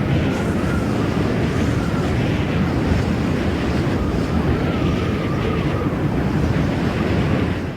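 Steady rush of wind with a heavy low rumble and a faint wavering whistle over it, like air streaming past at speed; it cuts off abruptly at the end.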